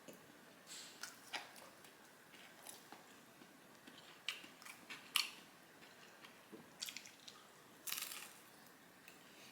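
Someone biting into and chewing crispy batter-fried chicken nuggets: quiet, irregular crunches and crackles, the sharpest about halfway through and a longer crackling crunch near the end.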